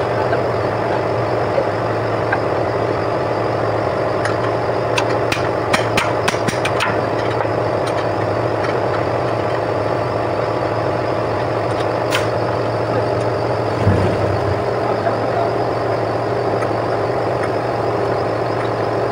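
A steady machine drone, like an engine idling, runs throughout. About five to seven seconds in there is a quick run of sharp clicks, another single click comes near twelve seconds, and a dull thump follows about fourteen seconds in.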